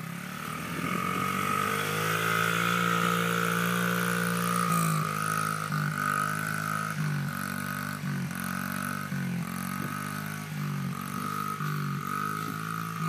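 Honda 50cc dirt bike engine running, its revs climbing over the first two seconds and then holding, with brief dips and recoveries about once a second in the second half.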